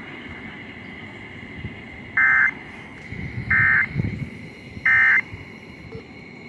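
NOAA Weather Radio SAME end-of-message data tones: three short, harsh digital bursts about a second and a third apart, marking the end of the alert broadcast, over a steady faint hiss.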